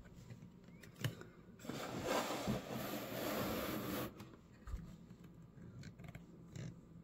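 Hard plastic toy playset pieces being handled and moved on a wooden desk: a click about a second in, then a scraping rustle lasting about two and a half seconds, and a low knock near five seconds.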